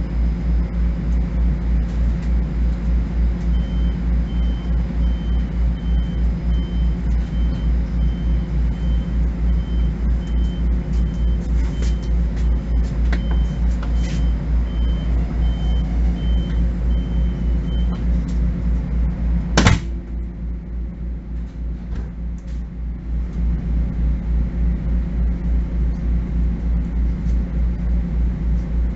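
Interior of a Bombardier M7 electric railcar: a steady low hum with a regular pulse, with a high beeping at about two beeps a second over roughly fifteen seconds. About twenty seconds in comes a single loud bang, after which the hum is quieter for a few seconds before returning.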